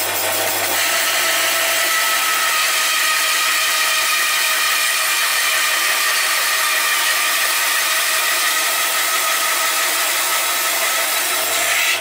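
Band saw running, its blade cutting lengthwise into the end of a wooden workpiece to saw the cheeks of an open mortise for a bridle joint. The saw's steady running sound carries the higher sawing noise of the blade in the wood, which sets in about a second in.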